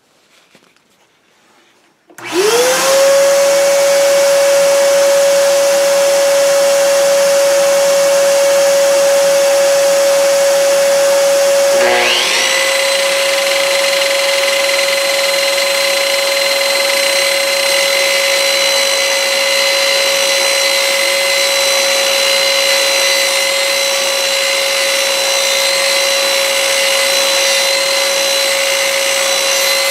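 A shop vacuum connected to the saw's dust port starts about two seconds in, rising to a steady hum. About ten seconds later a Makita sliding compound miter saw's motor spins up with a rising whine and runs steadily alongside the vacuum as the blade is lowered into a wooden gunstock.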